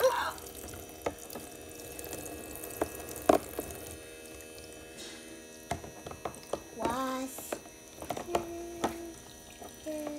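A thin stream of water runs from a toy plastic sink's faucet into its basin. Plastic cups and dishes knock and clatter against each other and the sink now and then, loudest at the start and about three seconds in.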